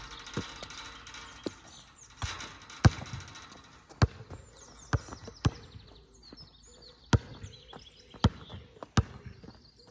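Basketball bouncing on a hard court, about ten sharp bounces at uneven intervals of roughly a second.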